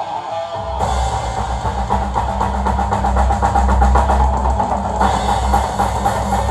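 Acoustic drum kit played along to a rock instrumental backing track. About a second in, the drums and full band come in loud and dense, with a heavy bass drum underneath.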